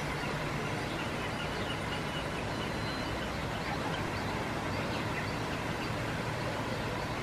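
Steady outdoor background noise: an even hiss over a low rumble, with a few faint high chirps from distant birds.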